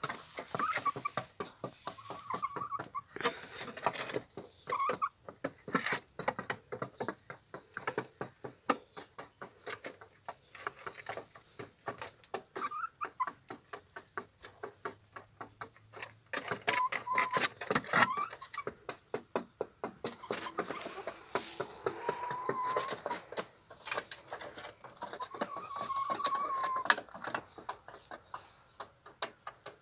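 Hens pecking at feed, a quick, uneven run of beak taps on the ground and feed bowl, with a few drawn-out hen calls and short high squeaks now and then.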